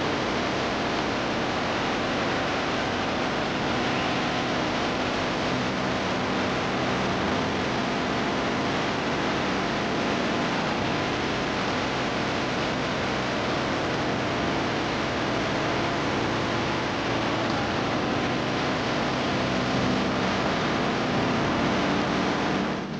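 Glacial-fed mountain river rushing in white water over boulders: a steady, dense hiss of water that fades out near the end.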